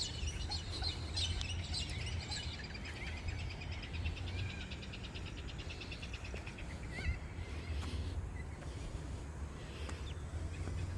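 Many birds calling and chirping together in a morning chorus, with a fast, even trill of repeated notes in the middle, over a low steady rumble.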